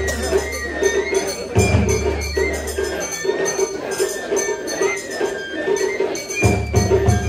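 Traditional Japanese festival music: a jingling percussion rhythm with a high, wavering melody line over low drumming. The low drumming drops out for a few seconds midway, then comes back.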